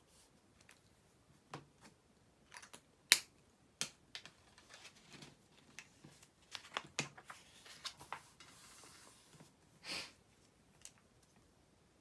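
Small desk-handling sounds: sharp clicks and taps as a sticky-note pad and other small items are picked up, set down and pressed onto a workbook, the loudest click about three seconds in. About two-thirds of the way through comes a rustle lasting about a second, then one more louder tap.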